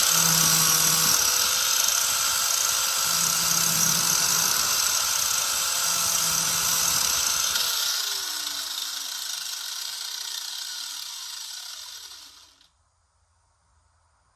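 Small Harbor Freight angle grinder running at full speed, grinding the cutting edge of a steel mower blade. About halfway through its motor tone starts falling in pitch as it winds down, and the sound fades and then cuts off near the end.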